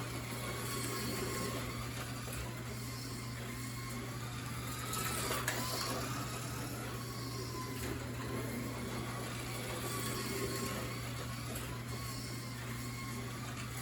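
1/32 scale slot car running laps on the track, its small electric motor whining, the pitch rising and falling as it speeds up and slows.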